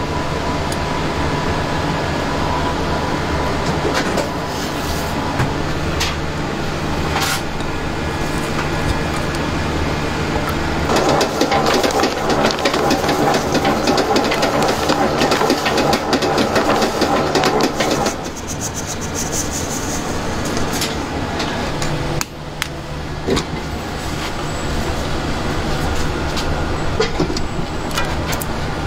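Steady low machine hum in a kitchen. In the middle, for several seconds, a dense rustling rush as desiccated coconut is poured from a plastic bag into a stainless steel bowl, with scattered small clicks and knocks of utensils.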